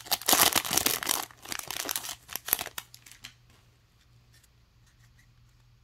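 Foil wrapper of a baseball card pack crinkling and tearing as it is ripped open. The sound is loudest in the first second and thins to lighter crinkles, then a few faint clicks of the cards being handled after about three seconds.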